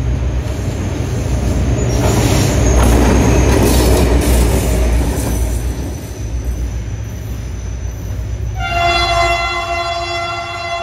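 HGMU-30 diesel-electric locomotive running light, its engine running with a low rumble as it passes close by, the noise swelling in the first half. Near the end its horn sounds one long steady blast that is still going at the end.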